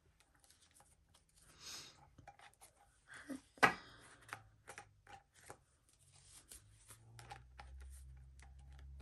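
Plastic photo-sleeve pages and a card being handled and flipped over a ring planner: faint scattered clicks and soft rustles, with one sharper click about three and a half seconds in.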